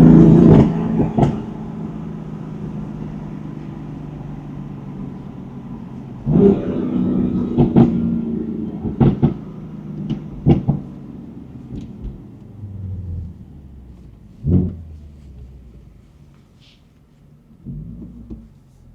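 BMW M4's twin-turbo inline-six accelerating hard at the start and again about six seconds in, with a run of sharp cracks and a single thump over the next few seconds, then easing to a low, quieter drone near the end.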